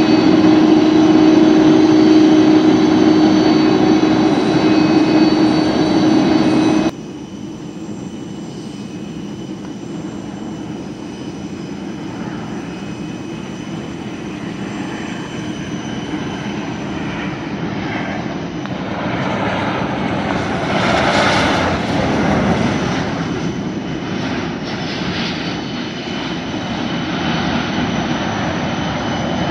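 Jet aircraft noise in two parts. First, a loud steady whine from around a parked Boeing 747-400, which cuts off abruptly about seven seconds in. Then the quieter rumble and hiss of an arriving Boeing 737-800's jet engines grows louder, peaking about two-thirds of the way through.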